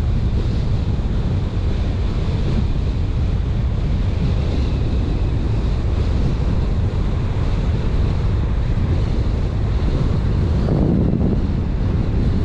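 Steady rushing noise of a car on the move: wind buffeting the microphone over a low road and tyre rumble, with a brief swell near the end.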